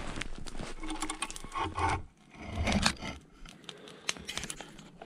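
Small handling noises: rubbing, scraping and light clinks as objects are moved about.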